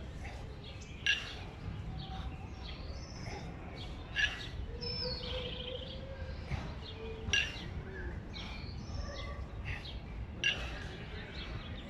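Pair of 20 kg kettlebells clanking once about every three seconds, one sharp metallic knock at each jerk repetition, over steady background noise.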